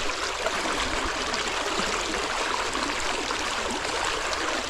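Floodwater running steadily: a continuous rush of flowing water.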